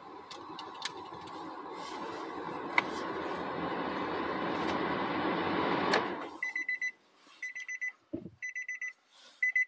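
A steady rumbling noise that grows louder and cuts off with a click about six seconds in, followed by a car's electronic warning chime beeping in short bursts about once a second.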